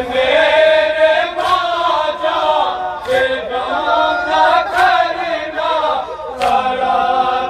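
Voices chanting a Muharram noha together, with a sharp beat about every second and a half.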